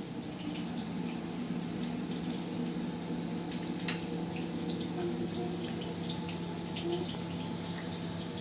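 Crickets chirping steadily over a low, steady hum, with a few light clicks scattered through.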